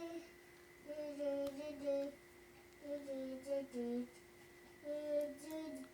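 A voice humming a simple tune softly in three short phrases of held notes that step up and down in pitch. A faint steady tone runs underneath.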